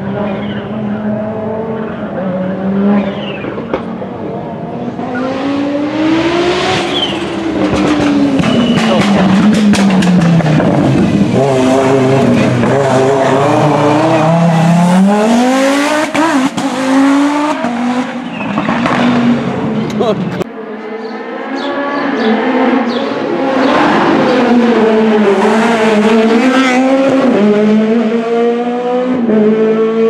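Rally car engine at full throttle, its revs climbing and dropping again and again through gear changes and braking as it approaches and passes. About two-thirds through the sound cuts abruptly to another car accelerating hard, its revs rising in steps.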